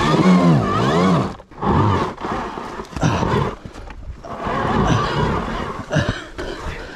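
Several men grunting and crying out with strain, in rising and falling voiced efforts with short breaks between heaves, as they push and haul a heavy electric dirt bike up a steep climb by hand.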